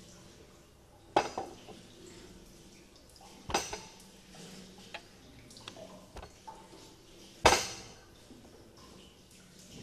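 Toilet-cubicle doors being handled: three sharp metallic knocks with a short ring, about a second, three and a half seconds and seven and a half seconds in, the last the loudest, with lighter clicks of the metal latches between.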